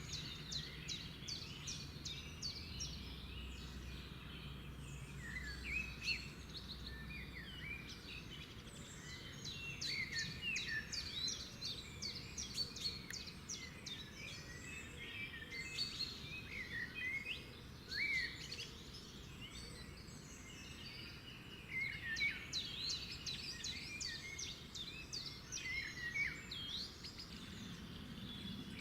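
A chorus of songbirds: many birds at once, with a dense run of quick chirps and short whistled notes that rise and fall. A faint low rumble sits beneath it in the first few seconds.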